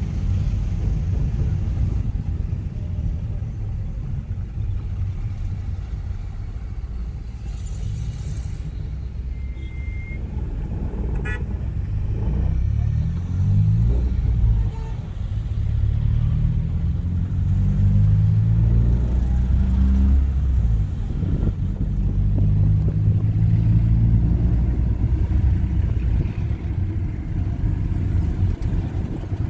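A car driving, its engine and road rumble steady underneath, the engine note rising several times as it picks up speed. There is a short high beep about ten seconds in.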